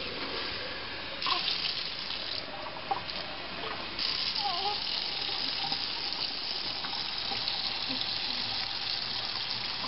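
Water running steadily from a tap, getting louder about four seconds in.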